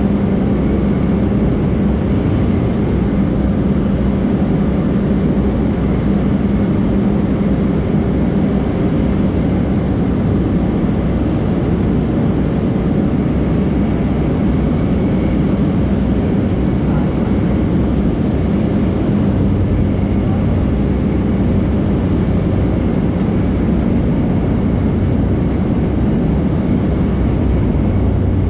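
Cabin noise of a Cessna Caravan in cruise flight: the single Pratt & Whitney PT6A turboprop engine and propeller drone steadily, with a thin high whine above, heard from inside the cabin.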